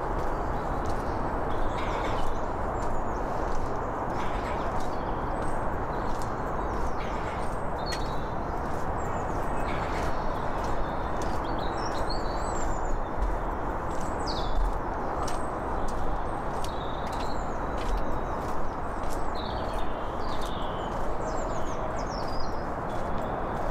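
Footsteps on a paved path at an even walking pace, with small birds chirping and singing throughout over a steady low rushing background.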